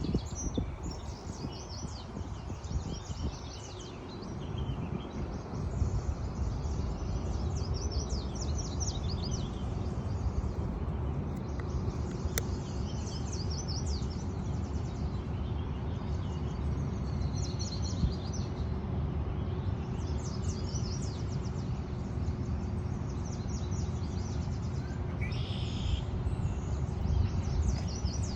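Small birds chirping and trilling in short high bursts, repeated throughout, over a steady low rumble.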